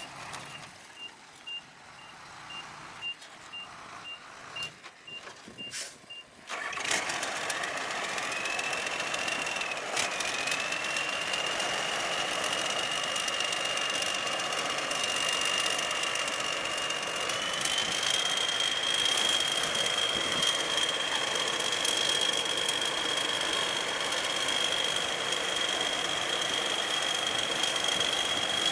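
A reversing alarm beeps steadily about twice a second for the first six seconds. Then a combine harvester's engine and unloading auger start up loudly, with a high whine that rises, holds, and steps up in pitch about halfway through, as the harvester unloads grain.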